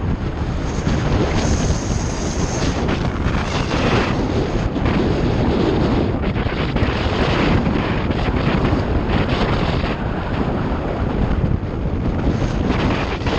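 Steady wind buffeting the microphone while riding, a dense gusty rumble, with the electric motorcycle's own running barely standing out.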